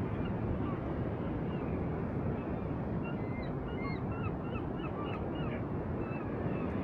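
Steady wind and sea noise, with a flurry of short, high bird calls from about three to six and a half seconds in.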